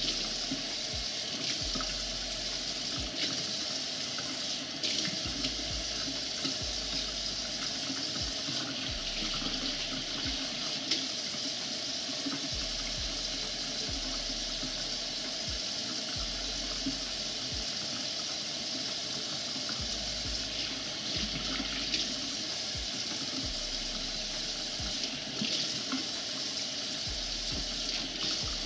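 Water running steadily from a kitchen faucet into a sink, splashing over hair and hands as dreadlocks are wetted, with light scattered ticks.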